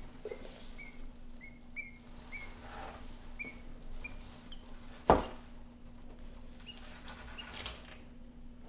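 Quail chick peeping: short, high cheeps about two a second, thinning out after about five seconds. A single sharp knock sounds about five seconds in.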